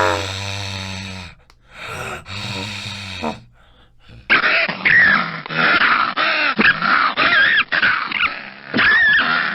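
Fox vocalizing: two drawn-out, low pitched calls in the first three seconds, then a run of rapid, high, wavering chattering cries for the last five seconds.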